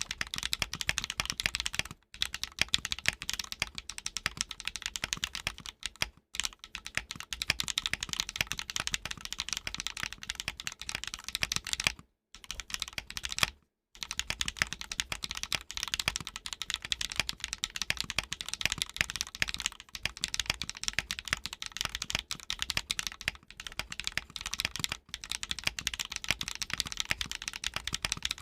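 Fast, continuous typing on a custom mechanical keyboard: a Lamy TKL with an aluminum plate in a top mount, HMX Swift linear switches and NicePBT PBT keycaps, the keystrokes coming too fast to count, with a few short pauses.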